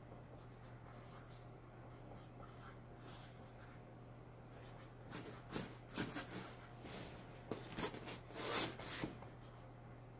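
A pen scratching on paper as words are written by hand, faint at first, with louder clusters of strokes from about five seconds in.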